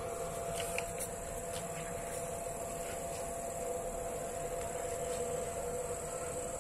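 Drone Power electric-scooter battery charger running under load, its cooling fan giving a steady hum.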